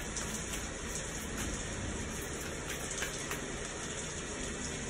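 Recorded thunderstorm soundtrack played back in the room: steady rain hissing on the ground, with a few faint drop ticks.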